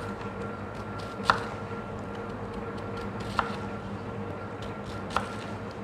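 Chef's knife slicing through a red onion onto a wooden cutting board, each stroke ending in a sharp knock on the board. There are three knocks, about two seconds apart, over a steady background hum.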